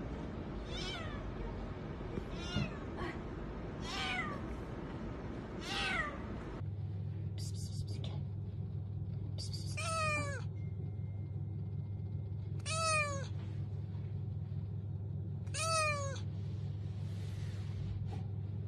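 Tabby kitten meowing repeatedly, about seven meows a few seconds apart, each falling in pitch.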